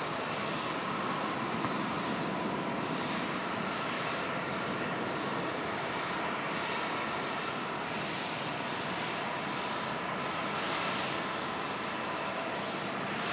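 Boeing 737-800's CFM56-7B turbofan engines at takeoff thrust during the takeoff roll: a steady rush of jet noise with a faint whine.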